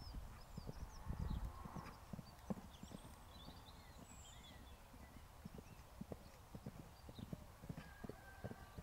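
Pony's hooves thudding on grass at a canter: a steady run of dull hoofbeats. A brief low rumble comes about a second in.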